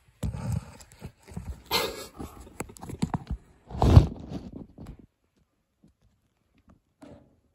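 Handling noise on the phone: rubbing and irregular knocks as the phone is picked up, turned and bumped, loudest about 2 and 4 seconds in, then almost quiet for the last couple of seconds.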